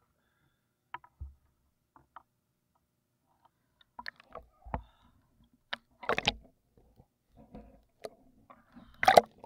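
Sea water sloshing and splashing against a handheld action camera at the water's surface as a swimmer moves: scattered small splashes and clicks, with louder splashes about six seconds in and again near the end.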